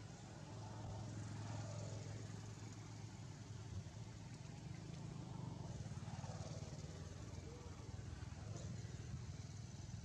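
Low, steady hum of a vehicle engine running, growing louder about a second in and then holding.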